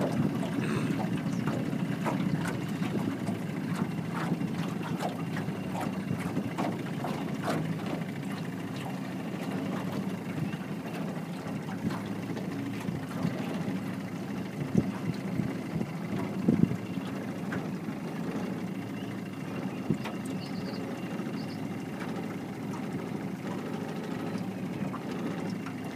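Small boat's motor running steadily at low speed, a continuous low hum, with two sharper knocks a couple of seconds apart near the middle.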